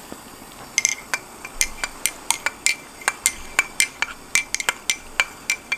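A metal spoon stirring coffee in an enamel mug, clinking against the inside of the mug about three times a second from about a second in.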